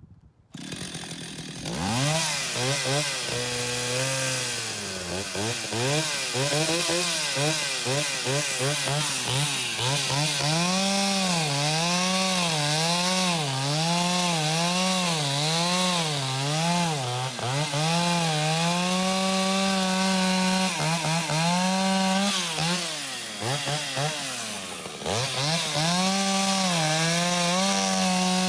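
Antique Stihl two-stroke chainsaw starting up about half a second in, then running with the throttle blipped up and down about once a second, held at high revs for stretches. Near the end the revs drop low for a moment before it revs up again.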